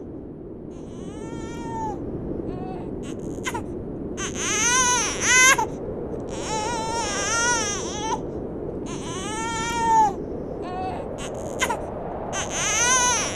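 A baby crying: a string of high, wavering wails, each about a second long with short breaks between them, over steady low background noise.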